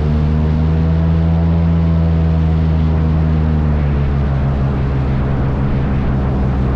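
Airboat running under way: its engine and large air propeller make a loud, steady drone whose pitch dips slightly about halfway through.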